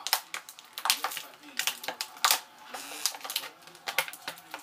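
Close, irregular clicking and crinkling of plastic toy packaging being handled, with a brief rustle in the middle.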